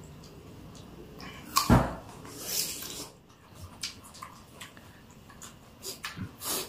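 Close eating sounds of fresh rujak fruit, jicama and pineapple dipped in chili palm-sugar sauce, being chewed with wet mouth clicks. A loud thump comes about a second and a half in, followed by a short hiss.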